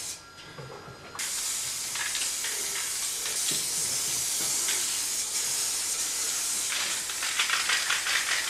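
Aerosol spray paint can hissing steadily as paint is sprayed in long strokes, starting about a second in.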